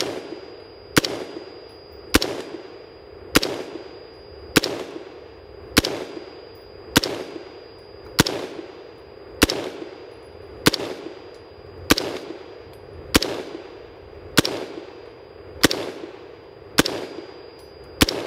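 Brownells BRN-Proto AR-15 replica rifle firing 5.56 mm Federal M193 ball in steady semi-automatic fire, sixteen shots at about one every 1.2 seconds, each shot trailing off in echo.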